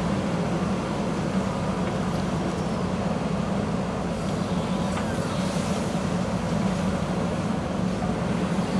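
Diesel engine of a JCB backhoe loader running steadily under work.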